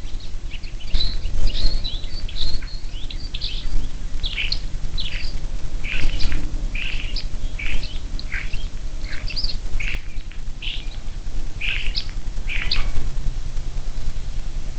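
Birds chirping outdoors: many short, high, falling chirps in an irregular series that thins out near the end, over a steady low rumble.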